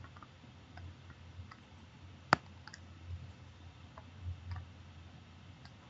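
Stylus tapping on a tablet screen while handwriting: scattered faint clicks, with one sharp click a little over two seconds in, over a faint low hum.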